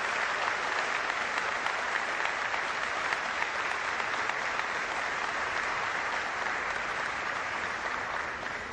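Audience applauding, many hands clapping in a steady dense patter that fades away near the end.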